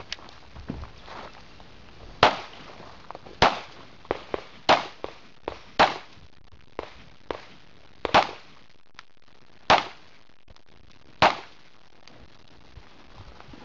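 Pistol shots fired one at a time during a practical shooting stage: about seven loud sharp reports spaced a second or more apart, with fainter pops in between.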